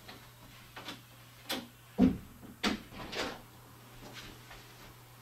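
Interior bedroom door being shut and opened again: sharp latch clicks and knocks, the loudest about two seconds in.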